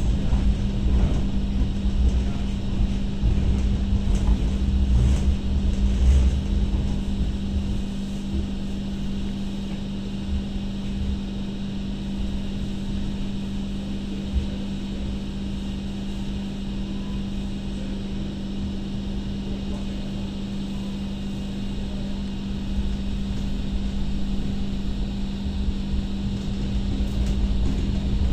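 Onboard running sound of an MTR Light Rail Phase I car in motion: a low rumble of wheels on track over a steady hum. The rumble is heavier for the first several seconds, eases off, then builds a little again near the end.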